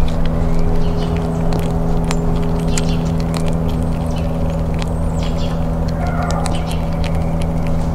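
Gray squirrel crunching and gnawing a peanut close up, a rapid, irregular run of sharp crackling clicks, over a loud, steady low machine hum.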